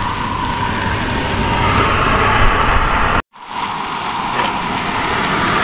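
Food frying in a pan on a camping stove: a steady sizzling hiss over rough wind rumble on the microphone. It drops out for a moment about three seconds in.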